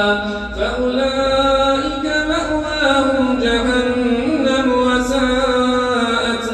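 A man reciting the Quran in the melodic maqam style, amplified through a microphone, drawing out long, ornamented held notes that turn up and down in pitch without a break for breath.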